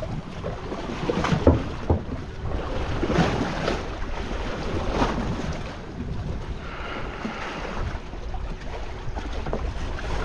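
Wind buffeting the microphone and choppy waves slapping against a small flat-bottom boat's hull, with a couple of sharp knocks about one and a half to two seconds in.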